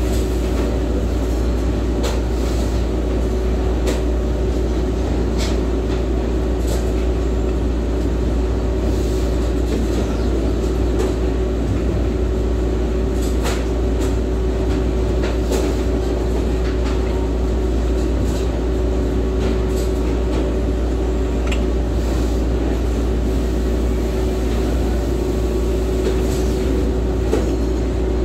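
Steady machinery drone with a constant low hum and a steady tone over it, broken by scattered light clicks and taps of hands and tools working on the machine.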